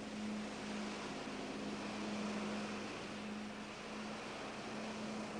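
Steady rushing noise with a constant low hum beneath it.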